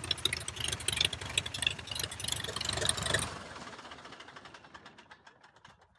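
Tiger Moth biplane's inverted four-cylinder engine running at idle, then switched off about three seconds in: the firing strokes slow and fade as the propeller winds down to a stop.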